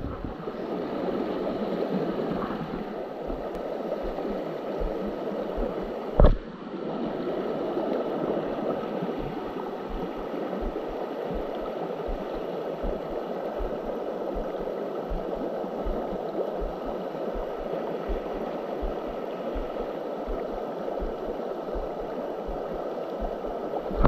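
Creek water running and gurgling steadily, with a single sharp knock about six seconds in.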